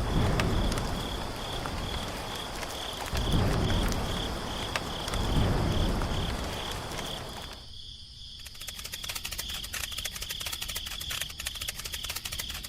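Steady pulsing, high chirping like an insect such as a cricket, with low rumbling swells over the first half. After a sudden change a little past halfway, rapid small ticking joins it.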